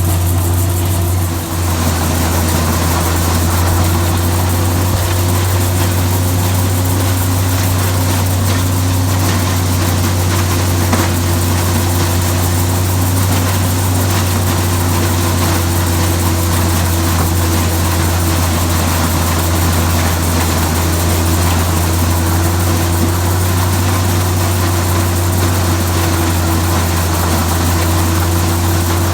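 Tractor engine running steadily, driving a New Holland 354 grinder mixer as it grinds ear corn; a loud, even low drone with a steady hum above it.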